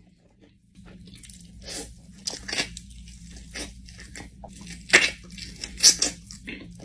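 Close-up eating sounds: irregular crunching, biting and chewing of crisp food, starting about a second in, with the two loudest crunches near the end.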